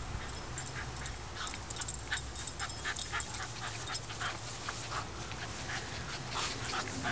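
Shih Tzu panting close to the microphone in quick, short breaths, starting about a second in.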